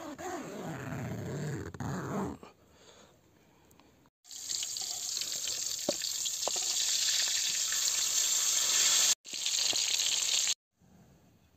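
A brief handling sound in the first two seconds. From about four seconds in, a paste frying in a wok on a portable gas stove sizzles steadily, with a few light scrapes from a knife blade used to stir it. The sizzle cuts out for a moment about nine seconds in and stops abruptly near the end.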